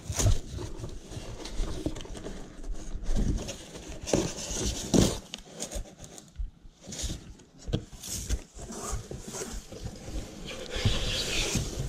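Cardboard being handled: box flaps and cardboard packing inserts pulled and pushed about, giving irregular rustling and scraping with occasional knocks.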